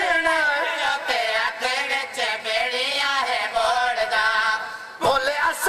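A man's voice chanting a melodic, drawn-out recitation, the sung style of a zakir's elegy, with long wavering notes. It breaks off briefly near the end, then starts again.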